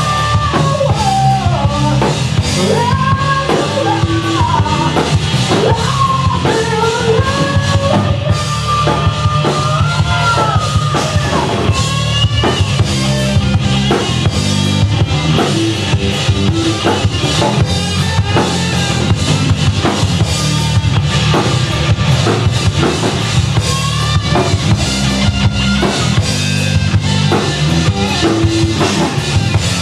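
Rock band playing live and loud: a drum kit keeps a steady beat under electric guitars and bass. A wavering melody line rides over the band for about the first twelve seconds.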